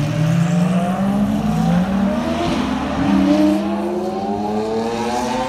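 Supercar engines accelerating away, with a Lamborghini Aventador Roadster's V12 among them. The engine note rises steadily and drops back a couple of times at upshifts.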